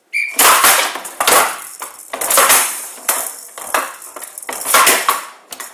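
A showdown rally: the bead-filled showdown ball rattles as it rolls across the table, clacking against the wooden bats and the table's side walls. There are about six sharp clattering hits, roughly one a second.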